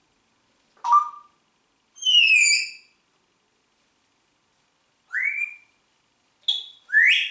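Congo African grey parrot whistling in short, separate calls: a brief note about a second in, a falling whistle around two seconds, then rising whistles near five and seven seconds.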